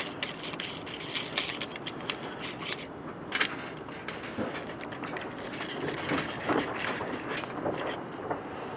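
Steel C-clamp being screwed closed by hand onto flat steel stock: scattered light metallic clicks and scrapes from the threaded screw and swivel pad, with one sharper click about three and a half seconds in.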